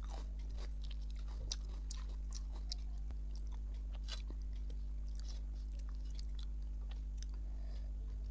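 A person chewing and biting food close to the microphone, with irregular short crunches and mouth clicks, over a steady low hum.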